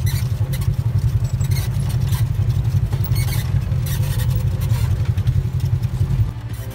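Polaris RZR 1000 side-by-side's engine running, a loud, rough, deep drone heard from inside the open cab, with occasional short clatters. It drops away about six seconds in, where music takes over.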